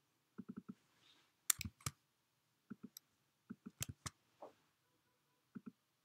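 Computer mouse clicks, mostly in quick pairs of press and release, with a few louder clicks in the middle.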